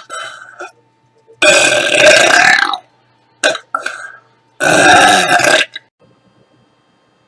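A woman belching loudly twice, each burp lasting a little over a second, with a brief quieter gulping sound just before each one.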